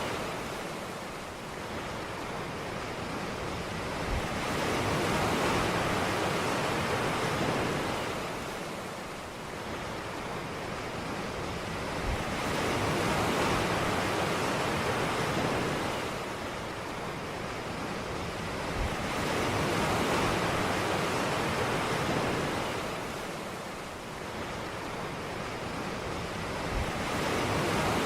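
Ocean waves breaking on a beach, the surf rising and falling about every seven seconds, four swells in all.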